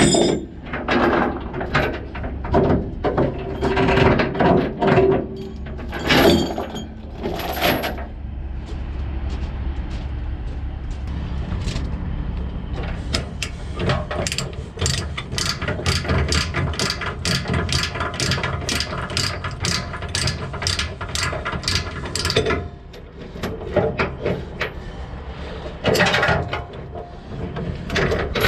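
Ratchet chain binder being cranked to slacken a tie-down chain: a long run of quick, even ratchet clicks, about three a second, in the middle. Before and after it the tie-down chain clanks and rattles against the binder and the trailer deck.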